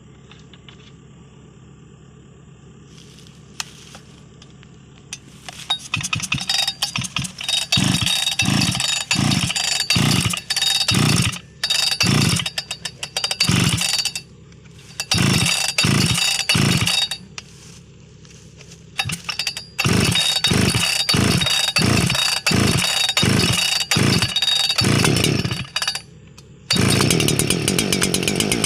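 Husqvarna 288 XP two-stroke chainsaw being revved in short throttle blips, about two a second, in several runs separated by short pauses at idle. Near the end it is held at steady full throttle.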